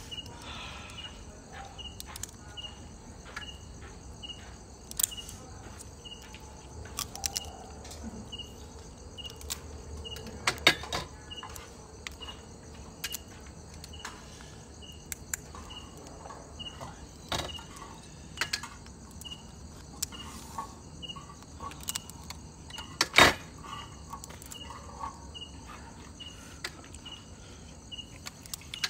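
A cricket chirping steadily at a high even pitch, about three chirps every two seconds. Scattered sharp clicks and cracks come from eating crab, the loudest about three-quarters of the way through.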